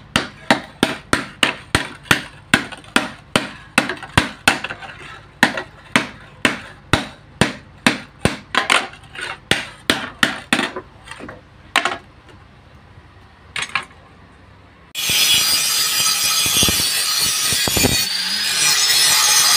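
Hand hammer striking a steel hoe blade, fitted with an old saw-blade edge, on an anvil: about three blows a second for some eleven seconds, then a few last strikes. About fifteen seconds in, an angle grinder with a flap disc starts grinding the hoe, a loud steady grinding noise.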